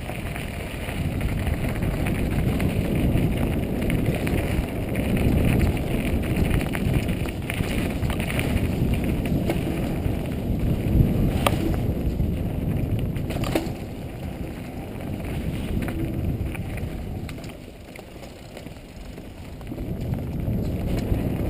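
Mountain bike running fast down a dirt singletrack: a steady low rumble of tyres on dirt with wind buffeting the helmet-mounted microphone, and two sharp knocks a little past the middle. It eases off for a moment near the end, then picks up again.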